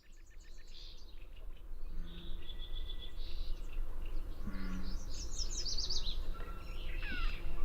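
Gray catbird singing a rapid, varied string of short phrases: quick note series, chips and downward slurs, one after another, over a low steady background rumble.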